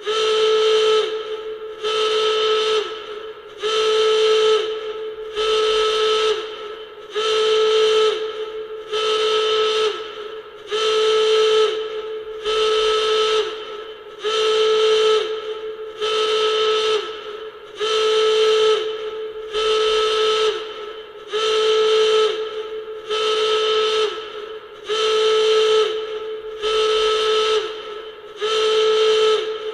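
Nuclear alarm sound effect: a harsh, loud alarm tone blaring in regular pulses, about one every second and three-quarters, each pulse sagging slightly in pitch as it cuts off.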